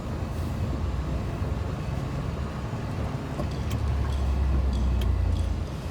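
Large truck's engine and road noise heard from inside the cab while driving: a steady low rumble that grows louder for about two seconds near the end, with a few faint ticks and rattles.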